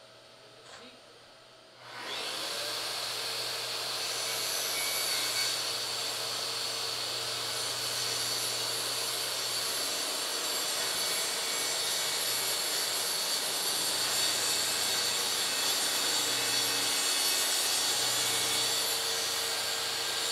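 Makita track saw starting about two seconds in and cutting steadily along its guide rail through a plywood sheet, with a dust extractor drawing through the hose on the saw.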